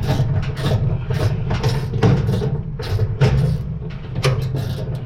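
Small hand ratchet worked in short back-and-forth strokes, giving irregular bursts of clicking about twice a second over a steady low hum.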